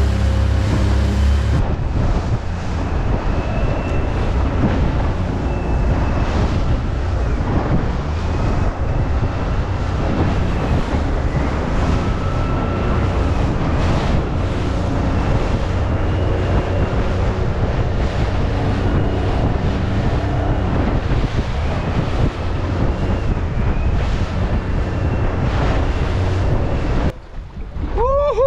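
Small aluminium boat running fast under its tiller-steered outboard motor through choppy sea: a loud, steady rush of engine, water and wind buffeting the microphone. It drops away sharply near the end as the boat slows and stops.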